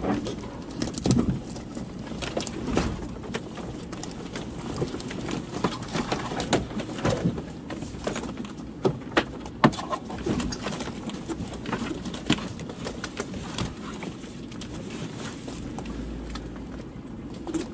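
A vehicle crawling along a rough forest track: a steady low engine and drivetrain rumble under frequent, irregular sharp knocks and cracks as it rolls over sticks, branches and uneven ground.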